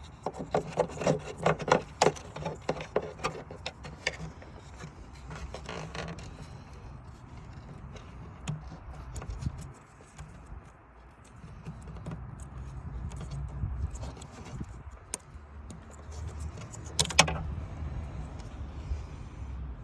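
Hands undoing the plastic clips of an old headlight angel-eye bulb and handling its wiring: a run of small clicks and rattles over the first six seconds, another sharp clatter about 17 seconds in, and rustling handling noise in between.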